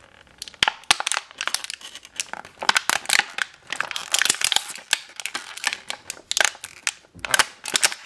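Thin clear plastic packaging bag crinkling and crackling as fingers handle it and work small toy pieces out of it: a dense, irregular run of sharp crackles.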